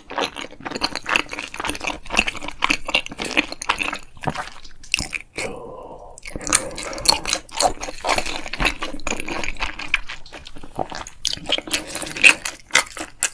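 A person chewing food close to the microphone: irregular crunching and wet, squishy mouth sounds, with a short lull about five seconds in.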